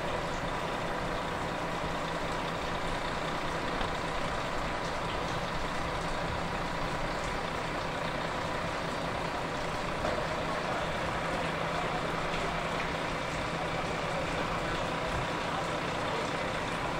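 Steady drone of engines and ground equipment on an airport apron, with a constant high whine over it.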